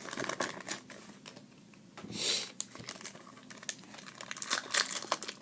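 Trading-card pack wrapper crinkling as it is handled and torn open, with a short tearing rustle about two seconds in and light clicks of cards being handled.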